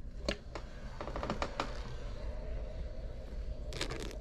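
A few small clicks and knocks of handling, then a mouthful of coffee spat out onto a paper journal page in a short spray near the end.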